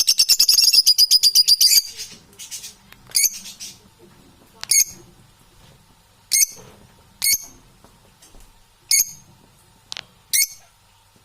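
Parrot calling: a fast run of loud, high repeated notes for about two seconds, then six short, sharp high calls spaced about a second or so apart.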